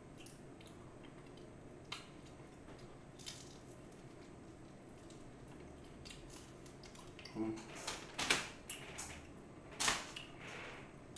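Chewing on seasoned fried chicken, with a few crisp, crunchy bites coming in a cluster about two-thirds of the way in.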